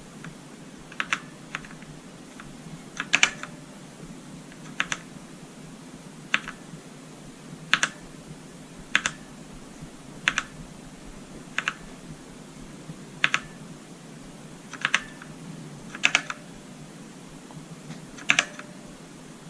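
Redragon Ratri K595 mechanical keyboard with Outemu Black linear switches: single keys pressed one at a time, a sharp clack about every second and a half, often heard as a quick pair.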